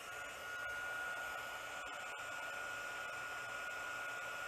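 Mini handheld heat gun running: its small fan motor gives a steady high whine over a rush of blown air as it heats and shrinks an adhesive-lined heat-shrink crimp connector on a wire.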